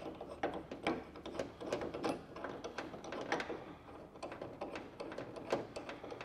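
Ladder-rack clamp bracket being fitted under a truck bed rail and its clamp screw started by hand: a run of irregular small clicks and scrapes of the parts being worked together.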